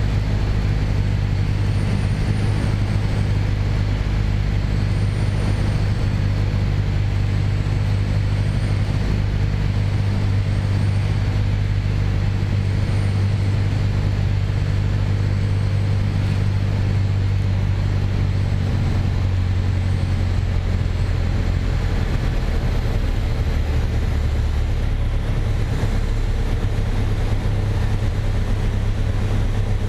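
Piper PA28-161 Warrior's four-cylinder engine and propeller droning steadily in the cabin on final approach. About two-thirds of the way through the tone drops as power is brought back for the landing.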